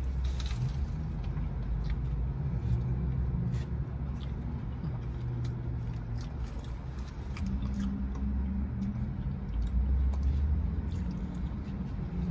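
Low, steady rumble of a car heard from inside the cabin, with faint small clicks of someone eating a burger.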